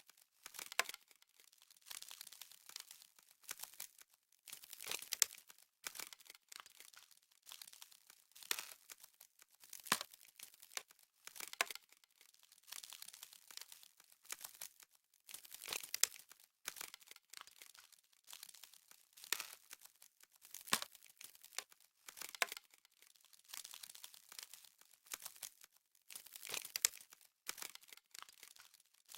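Frost crackling: irregular crisp, crinkly rustling in short bursts about every second or so, faint and mostly high-pitched, with a few sharper cracks standing out.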